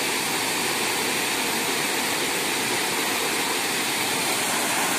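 Water rushing steadily over a small cascade in a rice-field waterway, an even, unbroken noise of falling water.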